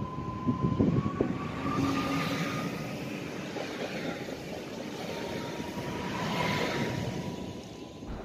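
Electric multiple unit running past close to the platform. It makes a steady high electric whine and a broad rushing rumble from the passing cars, with a few wheel knocks near the start. The sound fades away just before the end.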